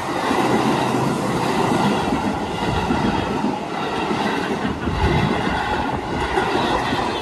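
Red-and-yellow Keihan Railway electric train passing a level crossing at close range, its wheels rumbling steadily over the rails. A crossing warning bell rings above the rumble.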